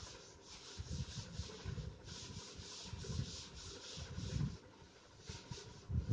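A cloth duster wiping chalk off a chalkboard: brisk back-and-forth rubbing strokes, a few a second, each a dry swish with a dull thud of the board.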